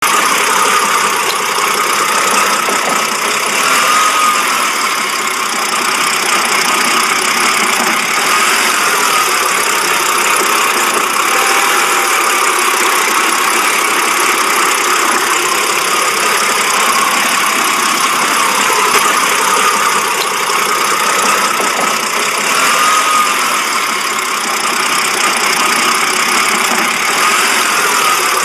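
BMW engine idling roughly: a steady running noise with no revving.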